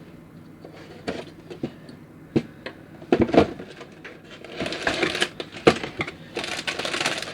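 Handling and opening a plastic model kit's box: scattered light clicks and knocks of cardboard and plastic parts, then from about halfway a dense rustling of packaging with more knocks.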